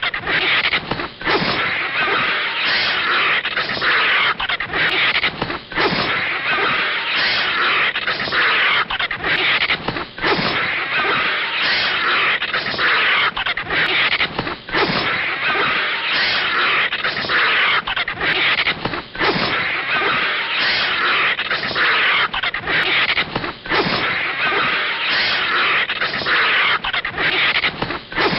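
Cartoon animal-fight sound effects for a vulture attacking a snake: a harsh, noisy animal sound that pulses in a quick, uneven rhythm with short breaks.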